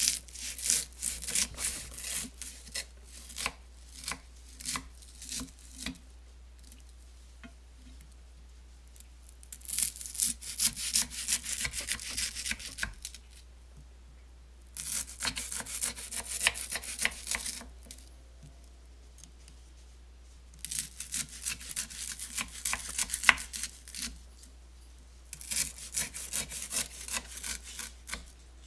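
A santoku knife cutting through Rice Krispies treats in a cast-iron skillet. The crisp rice crackles and crunches under the blade in five bouts of a few seconds each, with short pauses between them.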